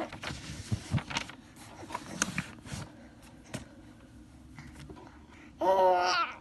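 Faint clicks and rustles of handling, then near the end a short voice sound, under a second long, that wavers in pitch.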